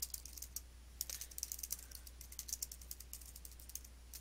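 Typing on a computer keyboard: a run of quick, irregular key clicks, with a short break about half a second in and thinning out near the end.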